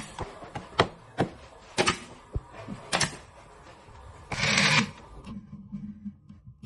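Irregular sharp knocks and clicks from work on a wooden speaker box, with a brief hiss about four and a half seconds in.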